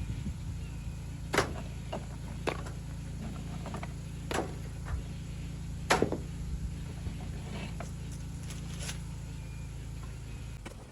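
A series of sharp knocks and clinks over a steady low rumble, the loudest about a second and a half in and again about six seconds in.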